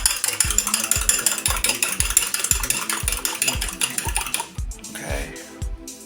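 Rapid, steady stirring or whisking in a bowl, likely eggs being beaten into the dressing mix, stopping about four and a half seconds in. Background music with a steady beat plays throughout.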